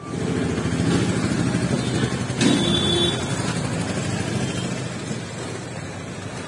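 A motor vehicle engine running steadily close by, easing off after a few seconds. About two and a half seconds in there is a knock followed by a short ringing tone.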